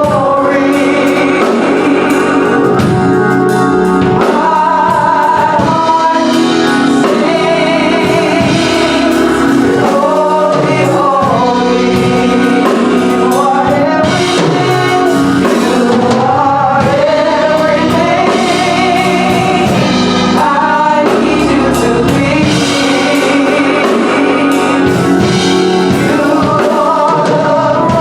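Gospel choir singing a song, with voices sustained and sliding in pitch throughout.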